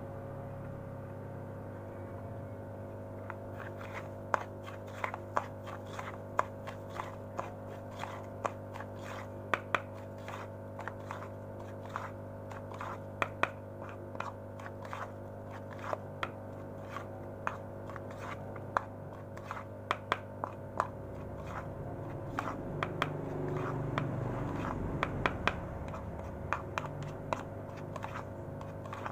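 Metal spoon stirring dry fish feed pellets in a plastic bowl: a rough scraping with sharp clicks of the spoon against the bowl, about one to two a second, starting a few seconds in. A steady low hum runs underneath.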